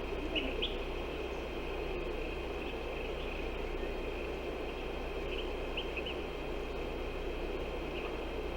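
Outdoor ambience: a steady rush of wind with a continuous high insect drone, and a few short chirps near the start and again about five to six seconds in.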